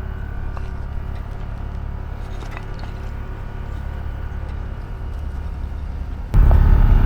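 A truck engine idling steadily. About six seconds in, it suddenly gets much louder.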